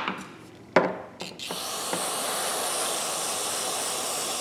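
Two sharp clicks in the first second, then from about a second and a half in the steady hiss of an aerosol spray can spraying through its straw nozzle.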